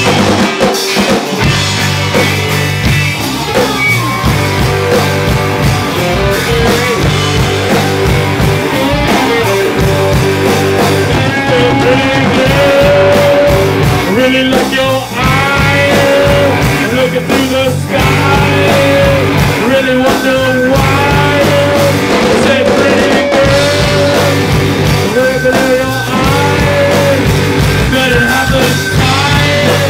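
Live punk rock band playing loud: electric guitar and a drum kit hit hard, with a singer's vocals over them.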